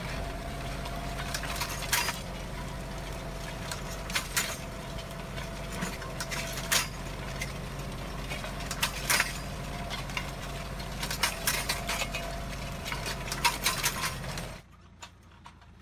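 Tractor engine running steadily while a tractor-mounted disc hoe works stony soil, with frequent sharp metallic clinks and knocks from the implement. The sound drops away abruptly near the end.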